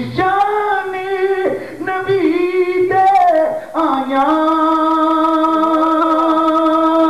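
A man's voice chanting in a melodic, sung style into a microphone, with pitch bends in short phrases and then a long held note through the second half.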